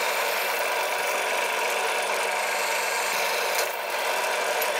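Drill press running steadily while its bit bores through a flat steel bar, a continuous grinding hum.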